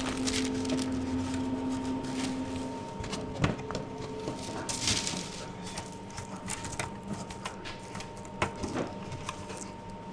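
Bakery room sound: a steady machine hum with a constant tone, with scattered clicks and knocks of baking trays and a metal tin being handled, and a short rustle about halfway through.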